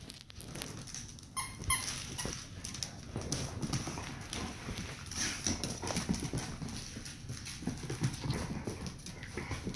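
Dogs' claws clicking and scrabbling irregularly on a hardwood floor as a Labrador and a dachshund scuffle over a toy.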